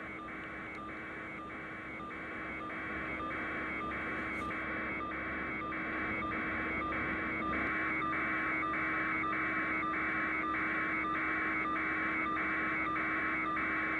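Electronic news background music: a steady low drone under an even pulse of just under two beats a second, slowly growing louder and cutting off abruptly at the end.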